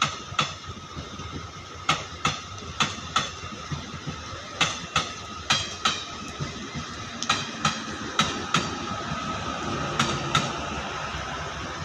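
DEMU (diesel-electric multiple unit) train passing at speed: its wheels clack over rail joints in quick pairs, one pair per bogie, over a steady high tone and a rush of running noise. From about seven seconds a low rumble from the diesel power car's engine grows as it goes by.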